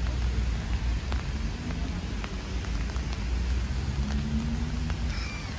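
Steady rain falling on wet pavement, with scattered sharp ticks of drops and a low rumble underneath.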